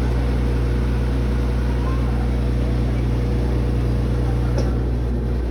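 Brastemp BWK12 12 kg washing machine running with a loud, steady low hum, the noise it is shown to be making. A faint brief tick comes near the end.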